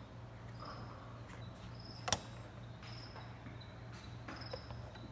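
Cricket chirping, a short high chirp repeating about once a second, over a steady low hum, with one sharp click about two seconds in.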